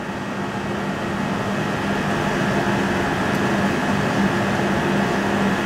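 Steady fan or air-conditioning hum with a low drone, growing a little louder over the first couple of seconds and then holding level.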